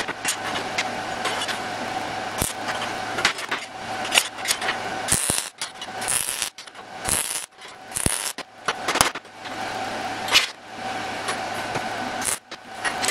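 Wire-feed (MIG) welder arc crackling and buzzing as steel flat bars are tack-welded together, stopping and restarting many times between short welds.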